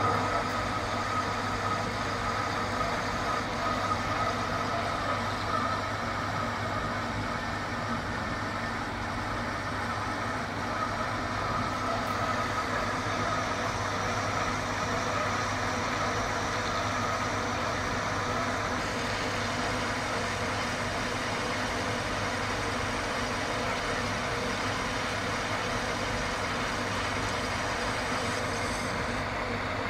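Metal lathe running and turning a steel bar for a steam nozzle: a steady machine hum with the noise of the cutting tool on the metal. A faint whine sits over it in the first half.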